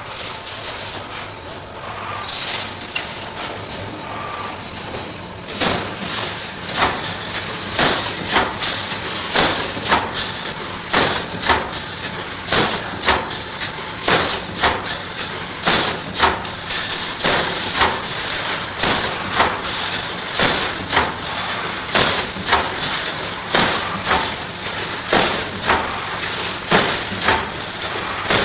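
Wire mesh welding machine running: its welding heads strike the wires in a steady rhythm of sharp knocks, roughly one and a half a second, over a steady high hiss. The knocking starts about five seconds in, after a quieter stretch of machine noise.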